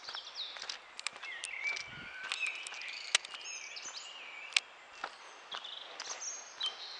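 Several birds singing and calling in quick whistled phrases, over the scattered steps of someone walking on a dirt woodland path.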